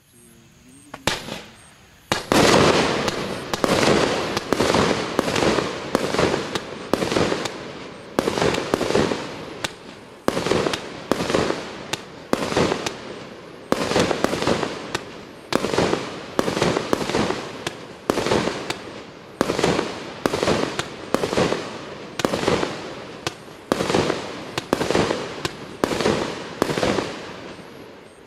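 A 25-shot, 30 mm firework cake firing its shells one after another, about one a second, each shot a sharp bang with a short crackling tail. A faint fizz comes first, the first shot about a second in, and the steady run of shots from about two seconds in.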